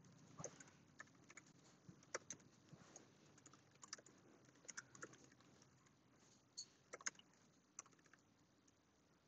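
Faint computer keyboard typing: irregular keystrokes and clicks with short pauses between them.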